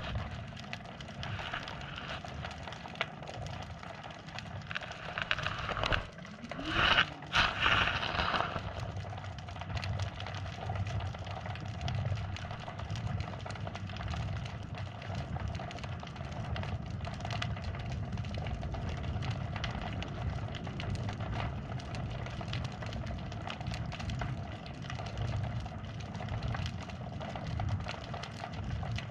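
Muffled underwater sound through a GoPro's waterproof housing: a steady low rumble with many faint scattered clicks, and a louder rushing swish about seven seconds in.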